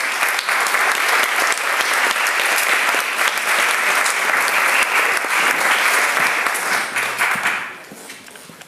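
Audience applauding steadily, dying away about three-quarters of a second before the end.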